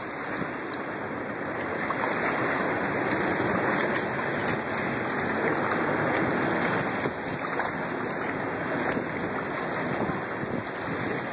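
Steady rushing noise of wind and moving river water, a little louder from about two seconds in.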